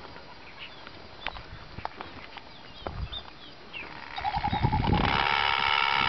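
Short, faint bird chirps, then about four seconds in a loud animal call starts, held at one steady pitch and rich in overtones.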